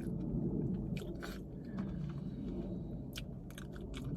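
Close-up chewing of seafood-boil food, with wet mouth smacks and sharp clicks scattered through it, over a steady low hum.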